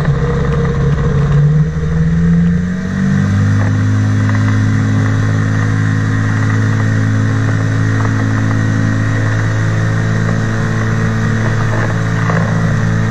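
Engine and pusher propeller of an ultralight flying boat (trike wing over an inflatable hull) running on the water, a loud steady drone. Its note shifts about two to three seconds in, then holds steady.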